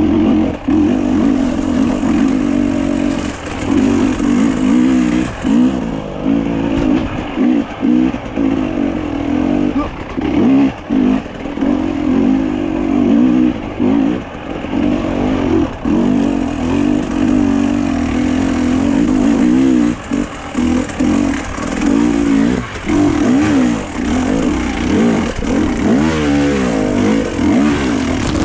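A vehicle engine running, its pitch wavering up and down throughout with frequent short drops in level, as when driving at changing speeds.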